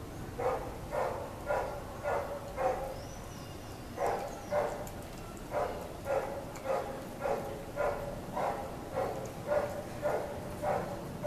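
Chow chow puppy gnawing a chew stick, a steady run of chewing sounds about two a second, with a short pause about three seconds in.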